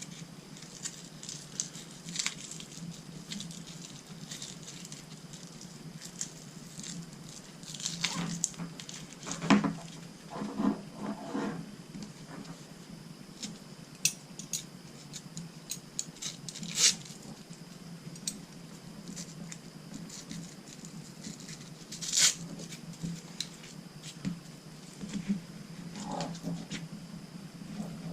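Hands working on a tree-climbing saddle and its hardware: scattered rustles and sharp clicks, a few louder knocks about 9, 17 and 22 seconds in, over a steady low hum.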